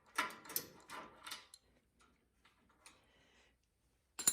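Socket wrench ratcheting in a quick run of sharp clicks while loosening the snowblower engine's spark plug, then a single metallic clink near the end.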